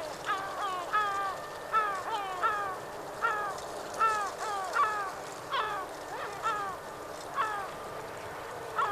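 Yellow-legged gulls calling: a rapid run of short, down-slurred cries, about two a second.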